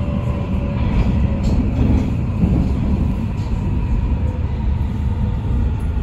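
Munich U-Bahn Type C2.12 train running at speed through a tunnel, heard from inside the car: a loud, steady low rumble of wheels on rails. A faint steady whine from the traction drive sits above it.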